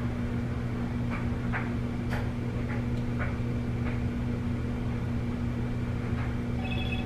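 Steady low electrical hum with about half a dozen faint clicks and scrapes as a small ice cream scoop takes cookie dough from a bowl and releases it onto a metal baking sheet. A phone starts ringing right at the end.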